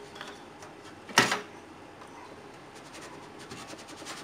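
A drive cage in a steel PC case being pulled out by hand, with one sharp clack about a second in and then light rattling ticks as the cage slides free.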